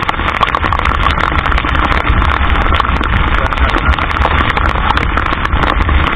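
Typhoon wind buffeting the microphone in a heavy, unbroken rumble, with driving rain pelting the camera and ship's deck in dense, sharp ticks.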